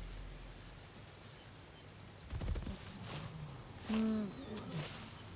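Background music fades out, then field sound of the kill: low rustling and thumps, and a short moaning animal call about four seconds in that falls in pitch, with a fainter second one just after.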